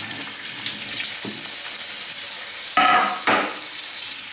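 Kitchen tap running into a stainless steel sink, the stream splashing over a fish and a wooden cutting board being rinsed under it: a steady hiss. A short pitched sound cuts in about three seconds in.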